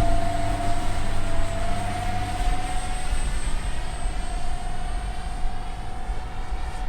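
Electric ducted fans of a four-fan RC model YB-49 flying wing, running with a steady whine whose pitch wavers slightly as the plane flies, over a low rumble.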